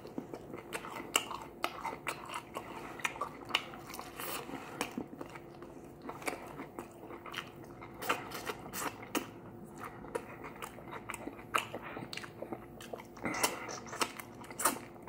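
A person biting and chewing crispy fried chicken wings, tearing the meat off the bone, with irregular crunching clicks throughout.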